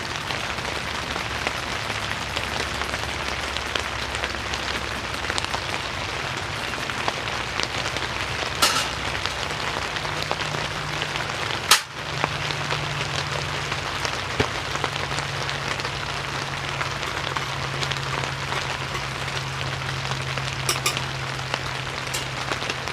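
Steady rain falling on a tent roof. A few sharp clicks and one louder knock about halfway through sound over it, and a faint low hum runs beneath.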